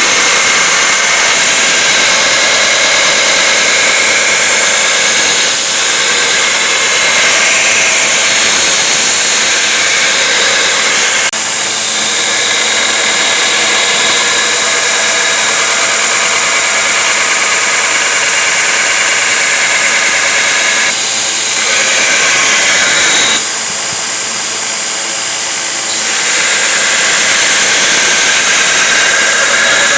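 A power tool runs loudly and continuously on the steel of a saw blade, with a steady high whine. Its level dips briefly a few times, and for a couple of seconds about three quarters of the way through, as the work is pressed and eased.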